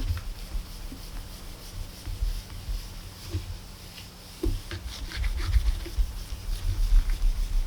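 A plate being polished by hand: irregular rubbing and scraping strokes with dull knocks from handling, over a faint steady hum.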